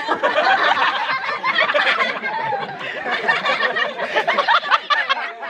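A group of young men laughing and shouting all at once, several voices overlapping loudly.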